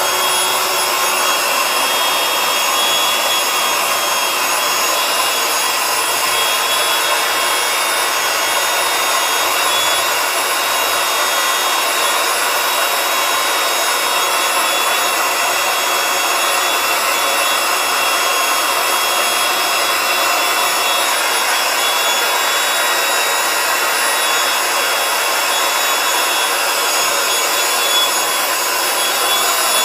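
Handheld electric air pump running steadily, blowing air into a vinyl inflatable chair. The sound is an even rushing whir with thin high whines from the motor, and it does not change in level.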